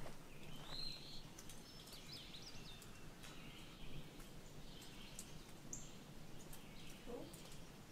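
Faint woodland birdsong: scattered short whistled notes and chirps from songbirds, over a quiet steady outdoor background.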